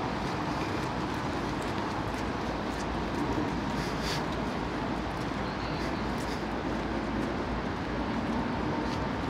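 Steady outdoor city rumble of distant engines, with a faint hum and a few light clicks.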